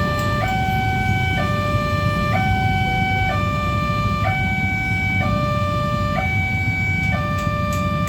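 Railway level-crossing warning siren sounding a steady two-tone hi-lo signal, switching between two pitches about once a second, over a low rumble.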